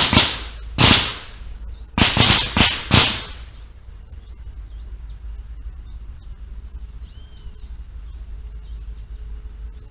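A volley of gunshots from a shooting-training area, about six in the first three seconds, each followed by an echo through the forest. Faint bird chirps follow.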